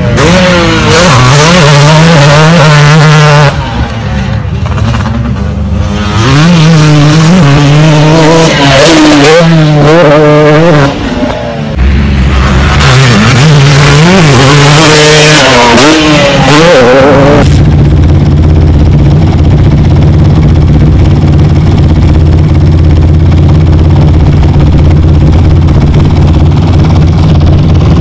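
Dirt bike engine revving hard and backing off again and again, its pitch rising and falling as the bike jumps and rides through the ruts of a motocross track. About two-thirds of the way in it gives way abruptly to a steady low drone.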